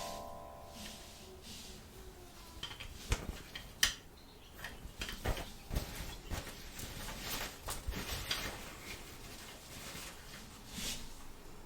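Small plastic toy pieces being handled and set down: a string of light clicks and taps, irregular and close together, with a few sharper knocks.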